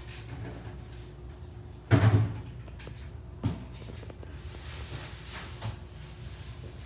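A loud knock about two seconds in and a smaller, sharper knock a second and a half later, over steady background noise with a faint hum.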